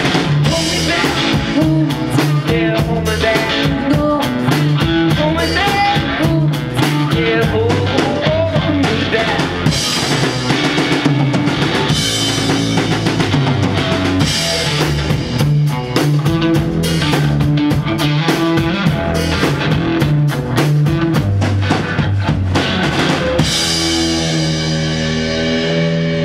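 Live rock duo playing loudly: a drum kit pounding out a beat under distorted electric guitar. About three seconds before the end, the drums stop and a guitar chord is left ringing on.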